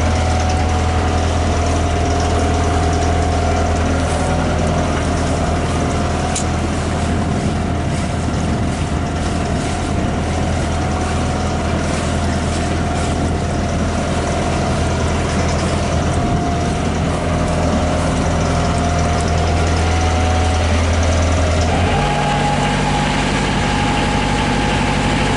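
Perkins 4-108 four-cylinder marine diesel running steadily with a low, even hum. About 22 seconds in its note steps up to a higher pitch and holds there.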